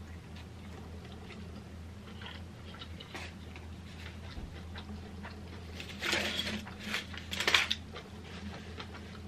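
A person chewing a mouthful of plant-based burger close to the microphone, with soft mouth sounds over a steady low hum. About six and seven seconds in, the aluminium foil wrapper around the burger crinkles twice, louder than the chewing.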